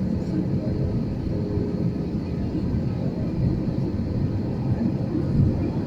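Airliner noise: a steady low rumble with no breaks.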